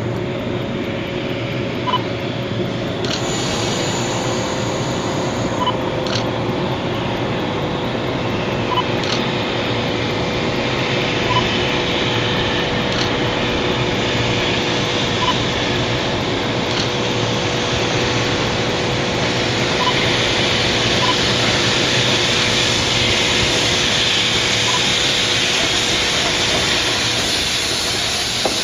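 Freight train with an EF67 electric locomotive running on the rails, a steady rumble with a faint steady tone and a light click every few seconds, slowly growing louder over the second half.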